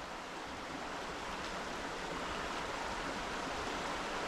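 Steady rushing of river water flowing past, an even hiss with no distinct events, growing slightly louder.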